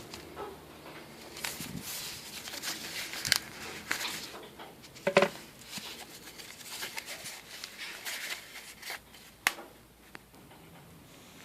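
Packaging being handled and unpacked: irregular rustling and scraping, with a few sharp knocks, the loudest about five seconds in and another near the end.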